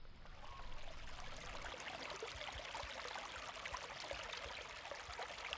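Faint shallow stream trickling and splashing over rocks, with many small irregular water sounds.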